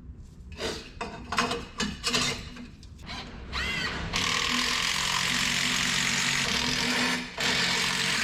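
Exhaust tips being fastened onto an aftermarket muffler. First come scattered clicks and knocks of tool work, then a small motor-driven tool runs steadily for about three seconds, stops briefly near the end and starts again.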